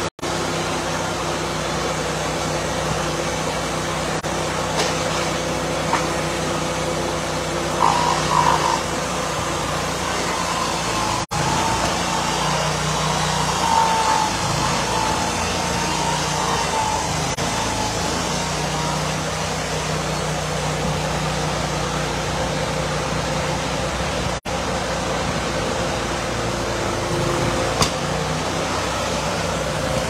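Portable band sawmill running steadily, its engine-driven saw head sawing a board off a squared log. A few brief higher squeals come through, and the sound drops out for an instant a few times.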